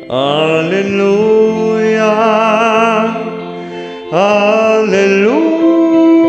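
A man's voice singing long held notes with vibrato over a karaoke backing track; a new phrase starts about four seconds in.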